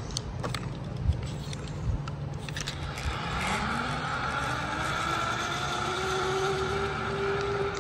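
Zipline trolley running along a steel cable: a few clicks and knocks as the rider launches, then a whine that rises in pitch as the pulleys speed up and holds steady.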